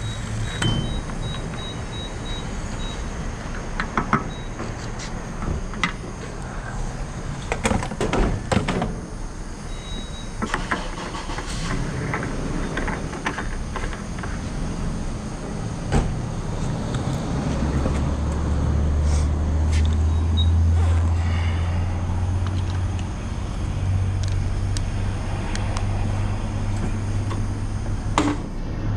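1992 Harley-Davidson Fat Boy's V-twin engine running under way, heard through wind and road noise on a chest-mounted GoPro, with scattered knocks and taps. About two-thirds of the way through, a strong low engine drone comes up and holds.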